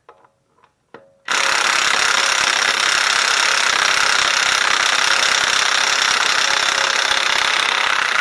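Cordless impact wrench hammering steadily on a stubborn, tightly torqued nut, starting about a second in after a few light clicks. It may be underpowered: its third speed has quit, which the owner thinks could be down to the battery.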